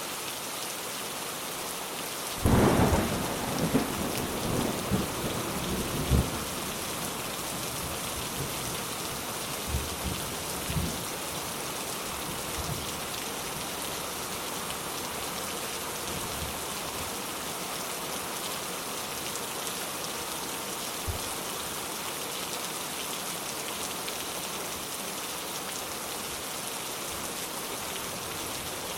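Steady heavy rain falling, with a clap of thunder a few seconds in that rolls and crackles for about four seconds. A few fainter rumbles follow about ten seconds in, and a single short crack comes about two-thirds of the way through.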